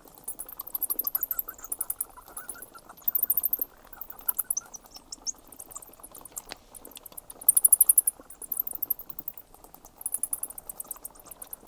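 Bats calling: repeated bursts of rapid, high-pitched clicks and squeaks, each burst under a second long, over a soft twittering chatter.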